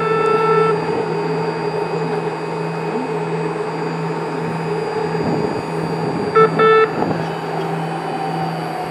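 A BART Fleet of the Future train stands at the platform with a steady electrical hum from its equipment. A short horn-like toot sounds at the start, and two more short toots, the second a little longer, come about six and a half seconds in.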